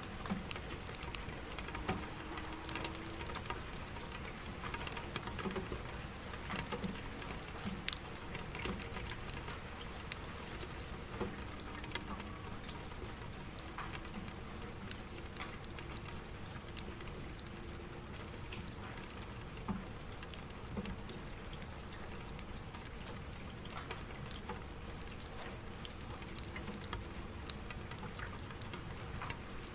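Steady rain, an even hiss broken by many scattered individual drops ticking at irregular moments.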